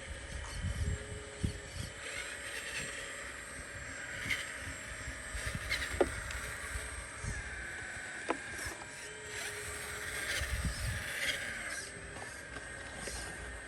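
Small electric motors of radio-controlled construction machines whining in short spells, with a few sharp clicks and low knocks.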